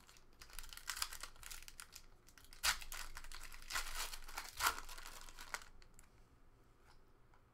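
A trading card pack's foil wrapper being torn open and crinkled, with two sharper rips near the middle, then the rustling dies away.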